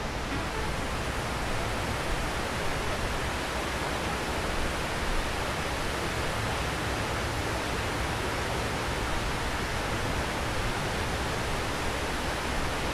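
Water pouring continuously down the walls of the 9/11 Memorial reflecting pool, a man-made waterfall: an even, unbroken rushing hiss.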